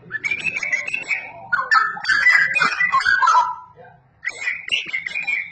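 Straw-headed bulbul (cucak rowo) singing loud, rapid warbled phrases, with a short pause about four seconds in before it starts again.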